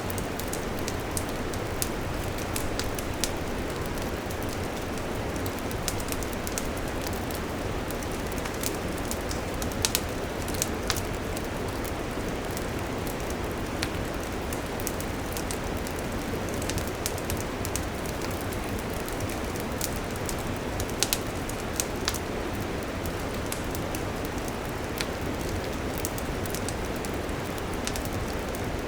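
Wood campfire crackling: a steady hiss dotted with frequent sharp pops, with a few louder pops about ten seconds in and again around twenty-one seconds.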